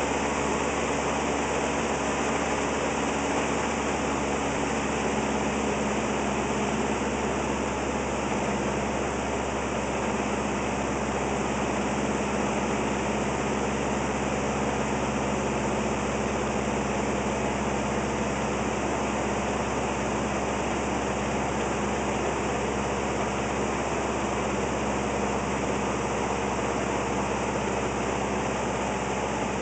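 Steady drone of a light airplane's piston engine and propeller heard inside the cockpit, with a low hum under a constant rush of air noise.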